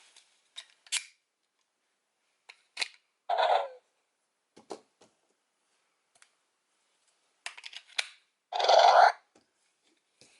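Sharp plastic clicks as a Dino Fury toy key is handled and clicked into place, broken by two short electronic sound effects from the toy's speaker, the second louder, just before the end.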